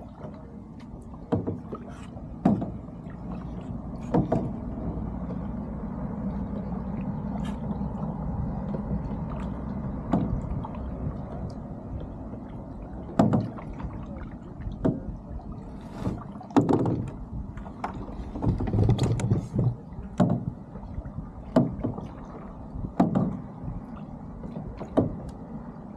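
Boat under way, its motor a steady low rumble, with water slapping and splashing against the hull in irregular thuds every second or two.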